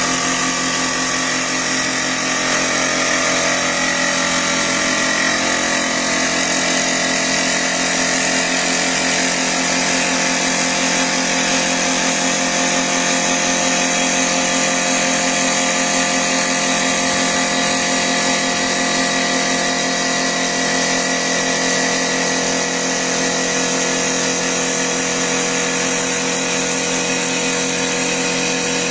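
CNC wood lathe running steadily as its cutter turns a long round wooden spindle: a constant machine whine of several fixed tones over the hiss of the wood being cut.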